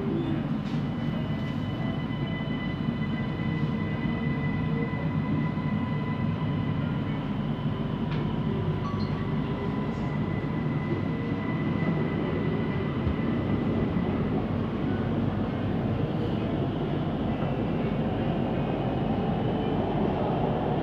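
Siemens Inspiro metro train running between stations, heard from inside the carriage: a steady rolling rumble of wheels on rail, which the uploader calls a weird rolling noise, with thin steady whines above it. In the second half a whine rises slowly in pitch.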